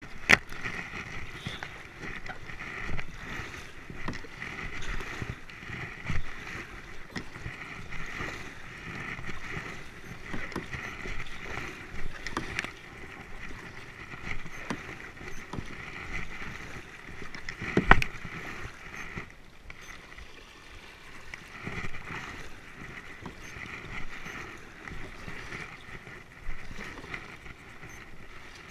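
Kayak paddle strokes through calm river water: the blades dip, splash and drip in a rhythm of a stroke every second or two. A sharp knock comes twice, once at the very start and once more loudly a little past the middle.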